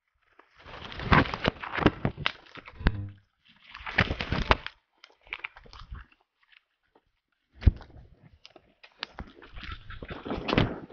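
Palm fronds and grass rustling and brushing against the camera as someone pushes through undergrowth, in three irregular bursts full of sharp clicks and crackles, with short quiet gaps between them.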